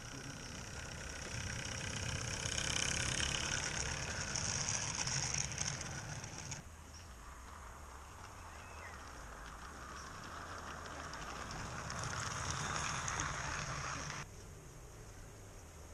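Steam hissing from a 16mm-scale live steam locomotive, in two spells that each cut off suddenly.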